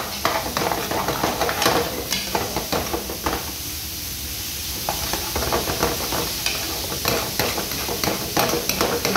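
Thick mushroom cream sauce bubbling and sizzling in a steel pan while a metal ladle stirs it, clicking and scraping against the pan, with a short lull in the stirring a few seconds in.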